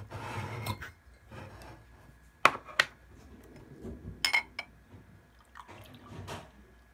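Ice cubes clinking in a tall glass, with a few sharp clinks about two and a half and four seconds in. Near the end, milk tea pours from a glass mason jar over the ice.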